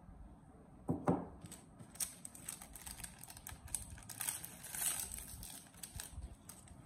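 Crinkling and rustling of a white KN95-style disposable face mask as it is pulled open and unfolded by hand. There are two sharp handling knocks about a second in, then a run of small crackling clicks that is densest a little past the middle.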